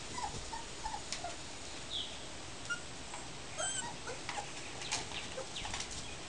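Border collie puppies giving a few short, high whimpers in the first second or so and the odd squeak later, with soft scuffling and clicks of paws moving on newspaper.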